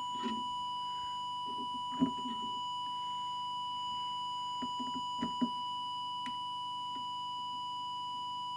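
Steady, unbroken test tone from an audio oscillator, used as the modulation signal while the CB transmitter's deviation is set. A few faint clicks come as the trimming tool turns the deviation preset, about two seconds in and again around five seconds.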